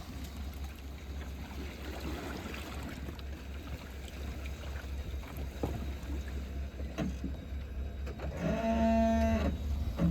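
An engine running with a steady low drone, with light knocks and handling noises over it. About eight seconds in, a steady pitched tone sounds for just over a second.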